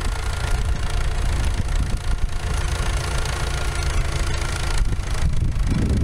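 Farm tractor engine running steadily at close range as the loader tractor drives past.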